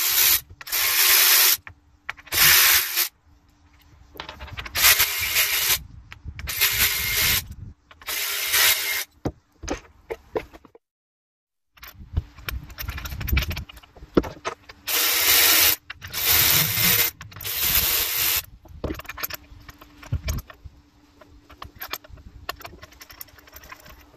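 Cordless power ratchet running in repeated short bursts of about a second each, backing out the ignition coil bolts and spark plugs of a jet ski engine.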